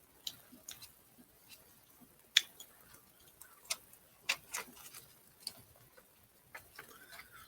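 Irregular sharp clicks and crunches of someone chewing a small, hard, coated candy, the loudest about two and a half seconds in.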